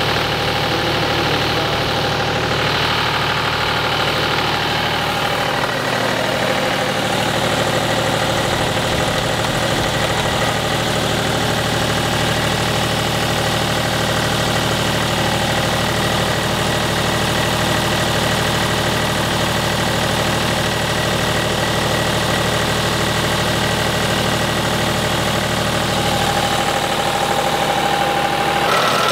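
Engine of a compact ride-on pipe-pulling plow idling steadily.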